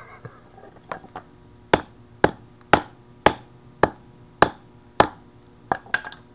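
A hammer striking a smoking-hot lithium phone battery on pavement: about seven hard blows roughly half a second apart, then a few lighter taps near the end.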